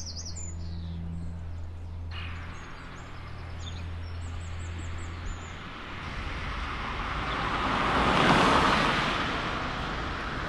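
Small birds chirping over a low steady hum, then a vehicle passing by, its noise swelling to a peak about eight seconds in and fading away.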